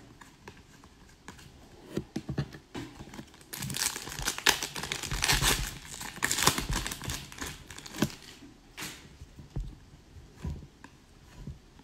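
Foil wrapper of an Upper Deck hockey card pack crinkling and tearing as it is ripped open by hand, loudest in the middle for about four seconds. Lighter snaps and clicks of the cards being handled come before and after.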